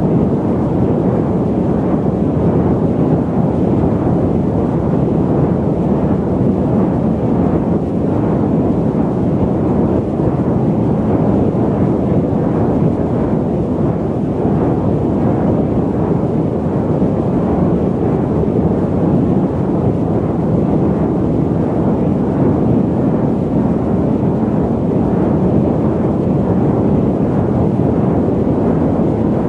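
Airliner cabin noise in cruise flight: a steady, deep, even roar of noise with most of its weight low and little hiss, unchanging throughout.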